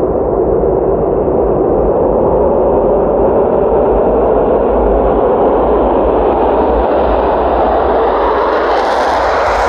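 Jet engine noise of a Swiss Air Force F/A-18 Hornet's twin turbofans drawing closer, a loud steady rush that grows brighter and hissier as the jet nears. Near the end it swells into a sweeping, phasing roar as the aircraft comes close.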